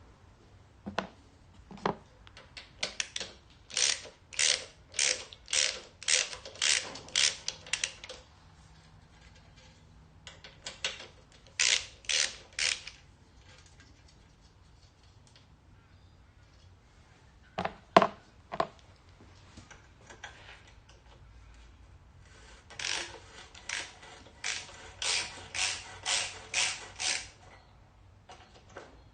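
Ratchet wrench clicking in three runs of quick strokes, about two a second, as the exhaust bolts on the engine are worked loose, with a few single sharp knocks of the tool on metal between the runs.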